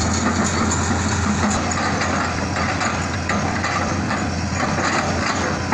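Hitachi Zaxis 200 excavator's diesel engine running steadily with a low hum while the machine swings its log grapple from the truck to the log pile.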